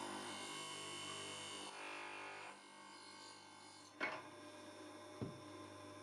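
Darex XT3000 drill sharpener grinding the split point on a drill: a faint, steady grinding hiss over the machine's motor hum for about two and a half seconds, then it stops. Two light clicks follow as the chuck is handled in the station.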